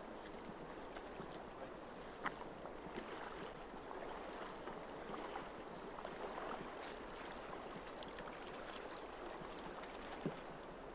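Shallow river current flowing steadily around wading anglers, an even rush of moving water. Two brief sharper sounds stand out, about two seconds in and near the end.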